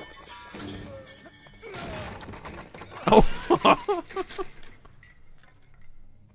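Fight-scene sound effects from the film's soundtrack. About three seconds in comes a loud crash with shattering, followed by a short run of loud, quick vocal pulses.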